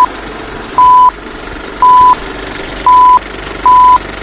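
Film-leader countdown beeps: short, high, single-pitch beeps about once a second, four of them plus the tail of one as it begins, over a steady background hiss and hum.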